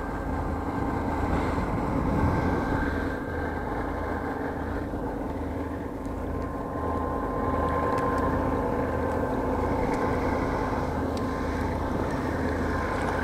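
Diesel engine of a passing river tug, a steady drone with a regular low throb.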